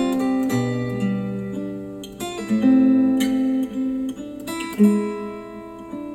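Instrumental acoustic guitar music, plucked notes and chords ringing on, played back through KEF R3 bookshelf speakers driven by an IOTAVX SA3 integrated amplifier.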